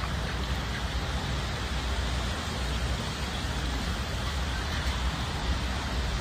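Steady background noise: a low rumble under an even hiss, with no distinct events.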